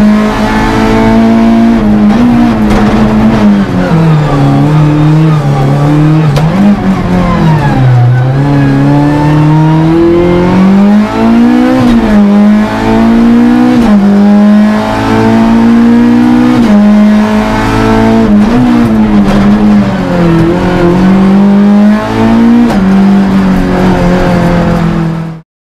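Four-cylinder rally car engine heard from inside the cabin under hard acceleration, its pitch climbing through each gear and dropping sharply at every upshift, with a longer fall in pitch where it slows and then builds again. The sound cuts off suddenly near the end.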